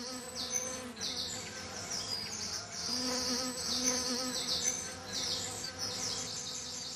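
Birds singing in a dense morning chorus of quick high chirps and trills, with a low steady hum underneath.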